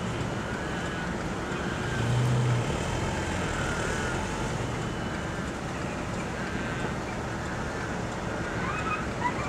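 Engine and road noise heard from inside a vehicle creeping along in slow traffic: a steady low hum that swells briefly about two seconds in.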